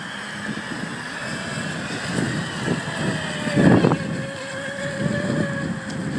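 Electric radio-controlled speed boat's motor whining at a distance, a single tone that comes in about three seconds in and falls slightly in pitch, with wind buffeting the microphone and a strong gust about halfway through.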